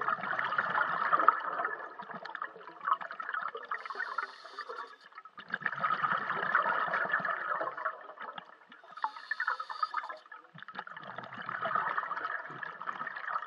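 A scuba diver breathing through a regulator underwater: three long bursts of bubbling exhaust, each a few seconds long, with a short hissing inhalation between them, about one breath every five seconds.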